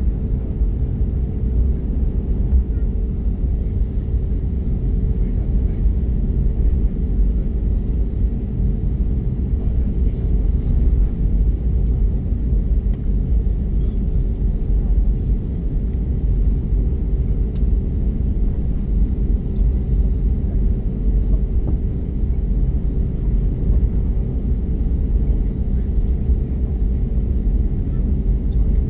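Steady low rumble in the cabin of an Airbus A321neo taxiing, its CFM LEAP-1A engines at low taxi power, with a pair of steady mid-pitched hums.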